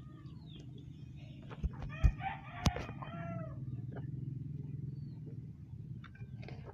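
A rooster crowing once, a long arching call about two seconds in, with a few sharp knocks at the same moment and a steady low hum underneath.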